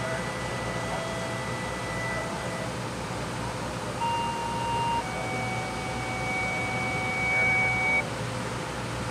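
A steady low engine drone under a series of held steady tones that step to a new pitch every few seconds, like electronic beeps.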